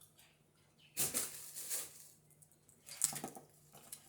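Paper rustling as it is handled, in two short bursts, about a second in and again near three seconds.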